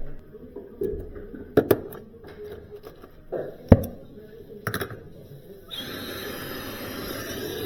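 A few sharp knocks and clicks of metal tools being handled, then a steady hiss of gas starts about three-quarters of the way through and keeps going.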